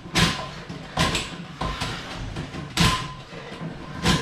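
Closet auger being cranked in a toilet bowl to break up a hard clog: irregular clunks and rattles as the auger's cable and metal shaft knock against the porcelain, a handful in four seconds. The clog it is working on is a sponge or tough rag lodged in the drain.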